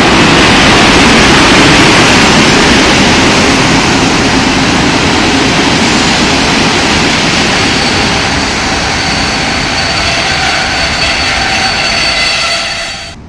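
Electric-locomotive-hauled passenger train rolling past along the platform: loud wheel-on-rail noise, loudest as the locomotive goes by near the start and easing as the coaches follow. About eight seconds in a steady high squeal joins it, typical of brakes as the train slows. The sound cuts off suddenly at the end.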